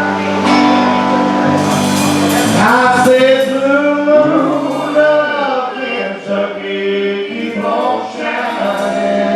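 Live band playing, with a held chord for the first few seconds; then a group of male voices comes in singing in harmony.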